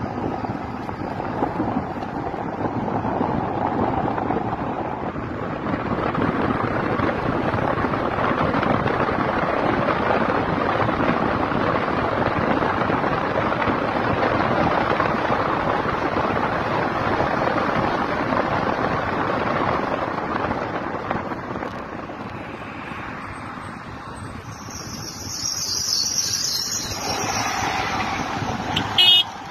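Steady rush of wind and road noise from a moving car, easing off a little for a couple of seconds before swelling again with a higher hiss. A short sharp click near the end.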